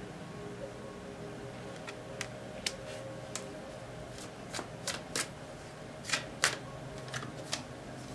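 Tarot cards being handled: a scattered series of light, sharp card clicks and snaps, over a faint steady low hum.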